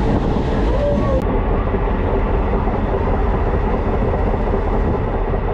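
Diesel multiple unit passenger train running at speed, heard from its open doorway: a steady, loud rumble of wheels on rail and the running diesel engine, with a faint steady hum appearing about a second in.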